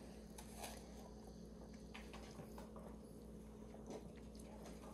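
Near silence: a steady low hum with a few faint clicks and taps.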